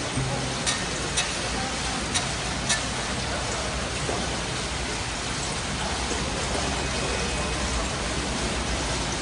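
Steady noise of a busy gym during kipping pull-ups on a steel rig, with four sharp clicks in the first three seconds.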